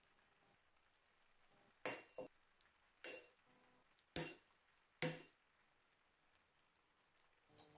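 Diagonal side cutters snipping stripped copper wires: a series of sharp metallic snaps, roughly one a second, with one more near the end.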